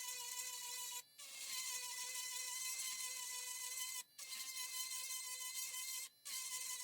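Small battery-powered rotary tool (Dremel-style) running with a steady high-pitched motor whine. It cuts out briefly three times, and after the first break it spins back up with a slight rise in pitch.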